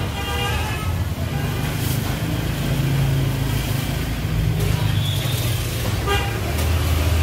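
Street traffic with a steady low engine hum.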